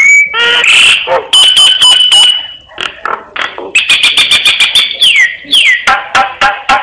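Crested myna singing a varied, mimicking song: a long steady whistle, quick runs of harsh clicking notes, and two falling whistles in the second half.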